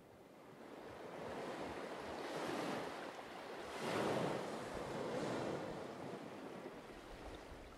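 Surf-like wash of noise, like waves rolling in: it builds up from faint, swells in three surges and eases off again.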